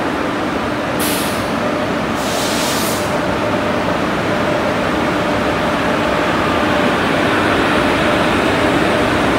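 Indian Railways WAG-7 electric locomotive moving off and passing close by, running with a steady hum that grows slightly louder. Two short hisses cut in about a second and two seconds in.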